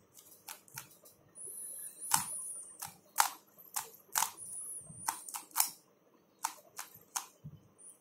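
Plastic 3x3 Rubik's cube being turned by hand through an algorithm: a string of sharp clicks and snaps as the layers turn, irregularly spaced, with some quick runs of turns.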